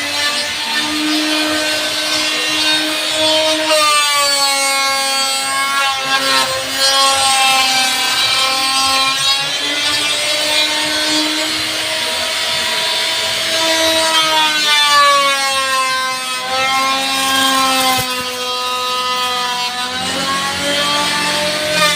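Electric woodworking power tool cutting wood, its motor pitch sagging under load and rising again every few seconds as it works through the cut.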